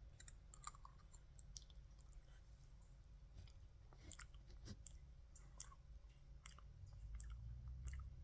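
Faint chewing and scattered small mouth clicks of a person eating soft microwaved spaghetti noodles, with a soft low rumble swelling slightly near the end.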